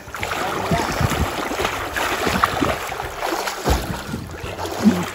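Water splashing and churning as a person swims through a river.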